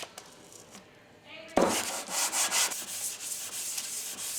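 Cast-iron sole of a vintage Diamond Edge hand plane rubbed back and forth on 220-grit sandpaper to flatten it, a gritty scraping. It starts with a knock about a second and a half in.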